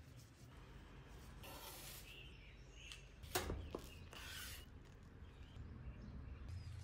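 Knife cutting through a griddle-toasted burrito: a few brief scraping strokes, with one sharp click about three and a half seconds in.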